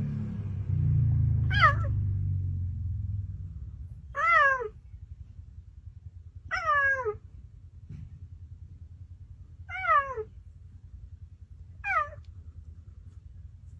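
Cheetah chirping: five short, high calls, each sliding down in pitch, spaced a couple of seconds apart. Under the first three seconds there is a low rumble that then fades.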